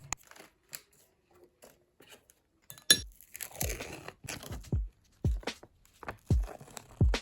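Close crunching: a few sharp clicks, then a rustling crunch, then a run of short crunches with dull thuds about every half second.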